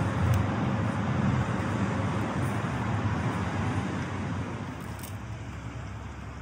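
Passing road traffic: a steady noise that dies down from about four seconds in, as if a vehicle drives by and away.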